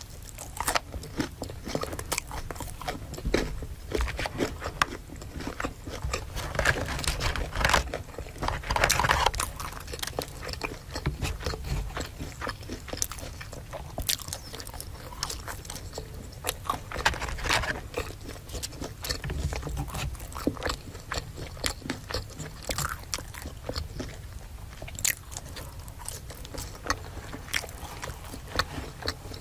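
Close-miked eating: crisp food being bitten and chewed, with many sharp crunches and denser crunchy bites now and then.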